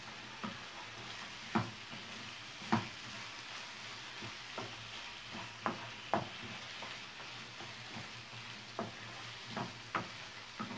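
A chicken, mushroom and olive filling sizzling in a black frying pan while a wooden spoon stirs it. The spoon knocks and scrapes against the pan at irregular intervals, roughly once a second, over a steady soft frying hiss.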